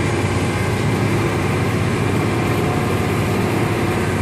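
Commercial HVAC equipment running: a steady, loud mechanical hum of fans and motors, with a constant low drone and a steady higher tone over a rushing noise.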